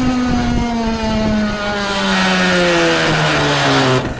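Electric bike hub motor whining, its pitch falling steadily as the bike slows, with a rasping noise rising over it about halfway through, like braking. This is the sudden-slowdown fault that the owner puts down to two chafed motor phase wires shorting.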